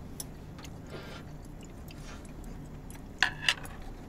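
Chewing of kimbap, close to the microphone, with scattered light clicks of chopsticks. About three seconds in comes a louder clatter of two sharp knocks.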